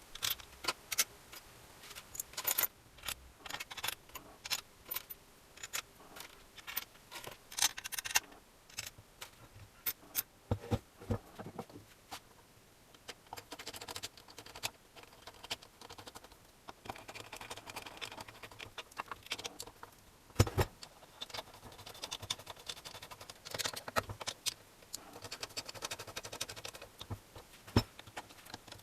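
Irregular metallic clinks, taps and rattles of small parts and hand tools being handled during moped repair work, with a single sharper knock about twenty seconds in.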